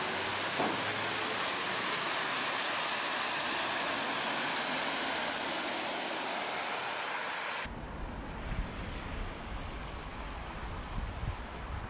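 Vehicles driving through floodwater on a road, their tyres throwing up a steady rushing splash of spray. About two-thirds of the way through, the sound changes abruptly to a low wind rumble on the microphone.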